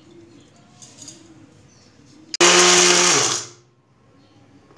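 Electric mixer grinder (mixie) pulsed once for about a second, coarsely grinding dry-roasted whole spices (cumin, black pepper, ajwain, cloves). It starts abruptly about halfway in, and its whine falls away as the motor winds down.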